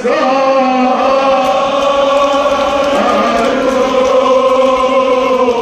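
Male voice chanting a Kashmiri marsiya, a Shia lament, in long held melodic notes that bend slowly.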